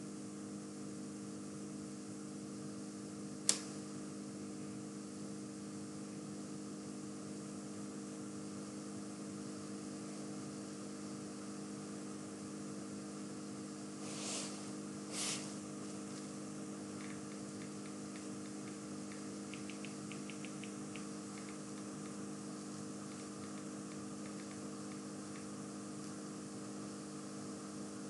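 Steady electrical hum with several fixed low tones, the room tone of a desk microphone. A single sharp click a few seconds in, two short hissy puffs about halfway through, and a run of faint light ticks shortly after.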